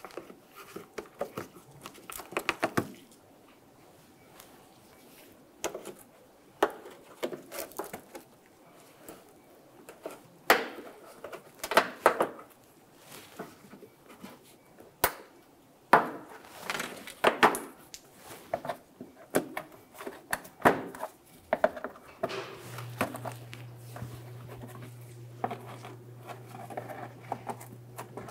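Plastic push-pin clips being pried out of a Ford Fusion's plastic front inner fender liner with a trim tool, and the liner being worked loose: irregular clicks, snaps and plastic rustling. A steady low hum comes in about three quarters of the way through.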